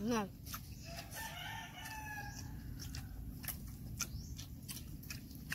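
A rooster crowing once, a single drawn-out call starting about a second in, with scattered light clicks around it. A brief louder sliding sound cuts off right at the very start.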